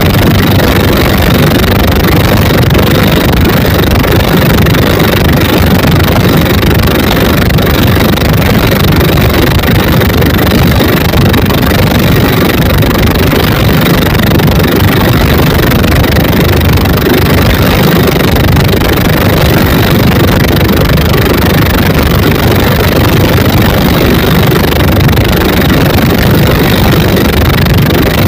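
Twin 24 hp dompeng single-cylinder diesel engines driving a wooden boat at speed during a speed run, running loud and steady without letting up.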